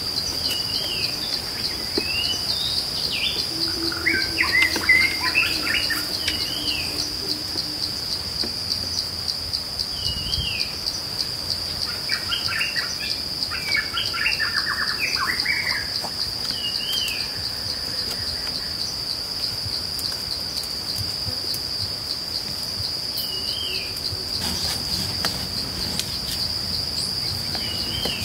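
Forest ambience: a steady, high, fast-pulsing insect trill, with a bird repeating short hooked call notes every few seconds and two bursts of bird chatter. A few faint clicks sound in the background.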